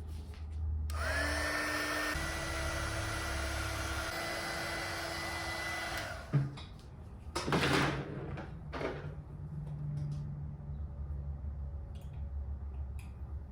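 A small electric motor spins up with a quickly rising whine, runs steadily for about five seconds with one step up in pitch, then stops with a sharp knock; two short noisy rushes follow.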